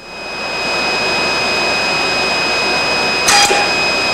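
Steady rushing noise from the wire-test lab recording, with two thin high whines running through it, fading in over the first second. About three seconds in there is a brief sharp crackle.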